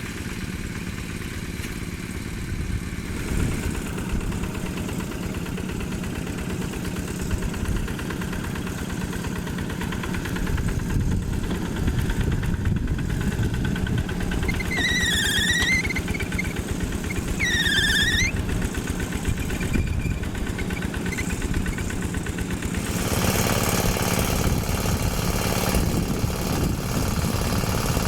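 Yanmar single-cylinder diesel engine of a Quick G1000 hand tractor running steadily while ploughing. Two short high chirps come a couple of seconds apart midway, and near the end the sound grows louder and harsher.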